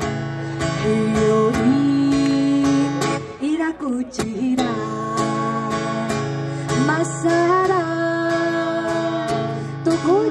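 Background music: strummed acoustic guitar with a sung melody.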